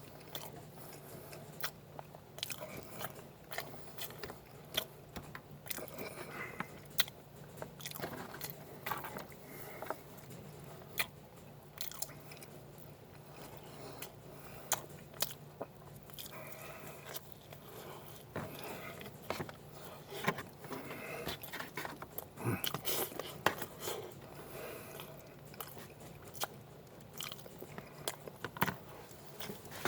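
A person chewing and biting through a breakfast of French toast, bacon and eggs, with irregular crunches and clicks.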